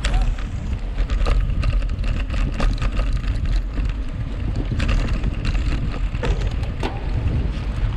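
Wind rumbling on the microphone of a camera riding along on a mountain bike at race speed, with frequent sharp clicks and rattles from the bike over rough ground.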